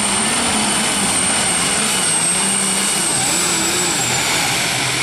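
Four-turbocharged super stock diesel pulling tractor running flat out under full load as it drags the sled. A steady high turbo whine rides over the engine and sags slightly near the end.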